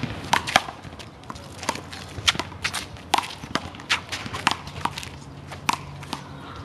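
Handball rally: a dozen or so sharp, irregular smacks of the rubber ball off the players' hands, the wall and the court, with footsteps between.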